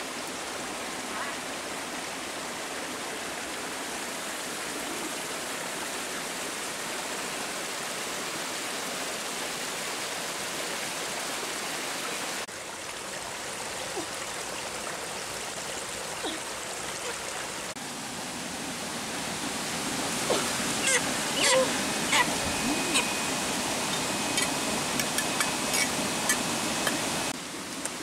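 Stream water rushing over rocks, a steady hiss. In the last third, scattered sharp clicks and knocks, and a thin, steady high tone for a few seconds.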